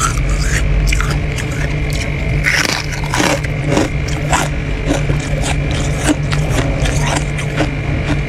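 Lumps of freezer frost crunching, a quick irregular series of crisp crunches, several a second, over a steady low hum.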